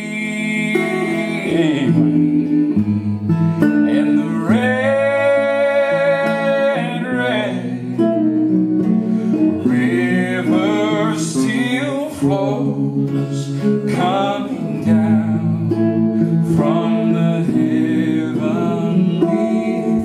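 A man singing a slow southern gospel hymn to his own strummed archtop electric guitar played through an amplifier, holding one long note a few seconds in.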